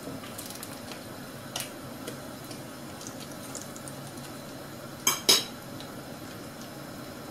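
A metal fork scraping and clicking against a frying pan while meat patties are turned, with light clinks here and there. About five seconds in come two sharp, louder clinks close together as the fork is set down on a plate; a low steady hiss runs underneath.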